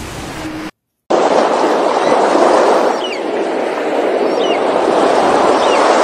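Steady rushing noise of wind and surf, cut to silence for a moment about a second in, with three faint short high chirps over it after that.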